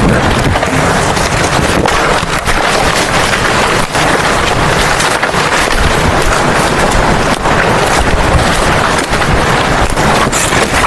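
Loud, steady rush of water from a jungle waterfall or mountain stream, an even roar with no break.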